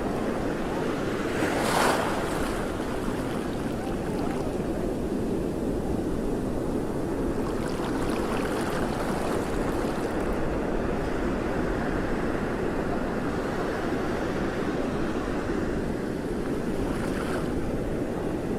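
Steady rushing of wind and water, with a brief louder rush about two seconds in and a smaller one near the end.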